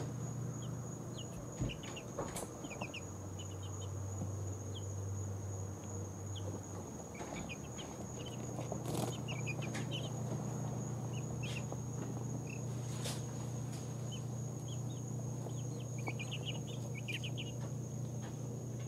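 Two-week-old baby chicks peeping softly, scattered short high chirps and little trills, clustering about three-quarters of the way in, over a steady low hum and a steady thin high-pitched tone. A few sharp clicks.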